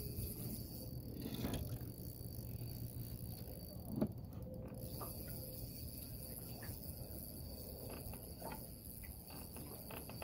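Faint ticking and clicking of a fishing reel as a fish is played on a bent rod, over a low steady hum. A short knock about four seconds in, followed by a brief burst of fast ticking.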